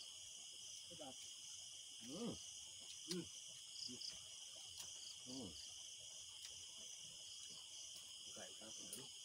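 Night insect chorus: crickets trilling steadily in a continuous high drone, with a pulsing higher trill over it. A few short, low calls or voice sounds come through faintly about two, three and five seconds in.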